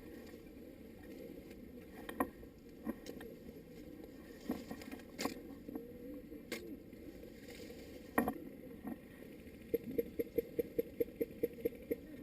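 Airsoft guns firing: scattered sharp cracks, then near the end a quick, even run of about a dozen shots, some five a second.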